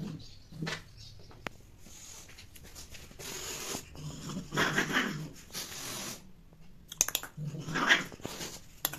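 Cat growling and hissing in about four breathy bursts, with a few sharp clicks in between; this is the hostile warning of a female cat toward the male around mating.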